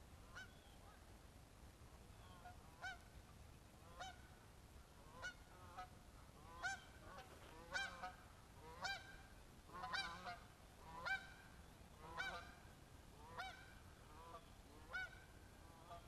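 A flock of geese flying over, honking about once a second. The honks are faint at first, loudest in the middle, and fade away again.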